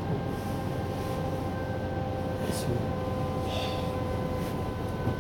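Interior running noise of a Siemens Desiro HC (class 462) electric multiple unit: steady rumble of the wheels on the track with an even whine of several held tones from the electric drive, unchanging in pitch.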